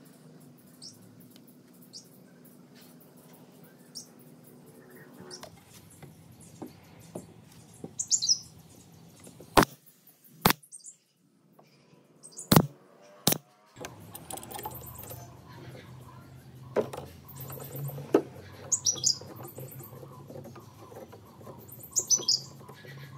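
Pneumatic brad nailer firing nails into wooden panels: several sharp shots, the loudest in two quick pairs around the middle. Birds chirp a few times in the background.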